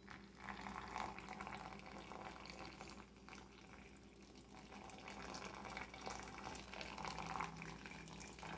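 Hot water poured in a thin stream from a metal saucepan onto ground coffee in a paper filter, a steady splashing trickle that swells and eases as the pour goes on.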